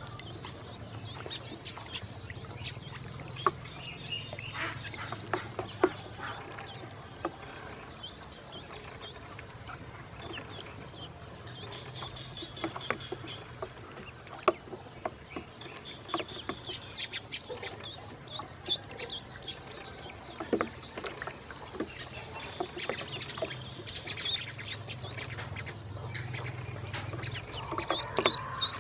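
Ducklings peeping over and over in short high calls, busiest in the second half, with small clicks and splashes as they dabble in shallow water in a plastic tub.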